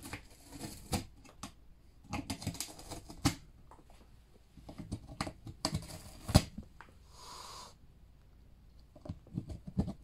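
Cat gnawing and biting at a cardboard box: irregular crunching clicks and crackles of teeth tearing at the cardboard edge. A short hiss comes about seven seconds in.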